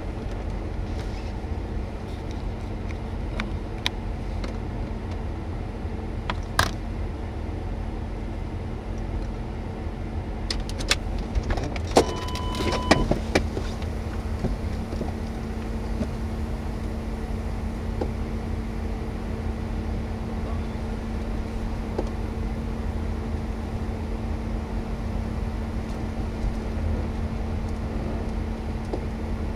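Steady low rumble of a car running, heard from inside the vehicle, with a few clicks and a short electronic beep about twelve seconds in, after which a steady hum comes up.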